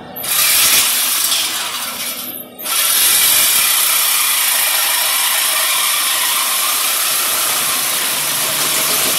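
Power tool cutting through the exhaust pipe to remove the mid-mufflers, running steadily with a brief pause about two and a half seconds in.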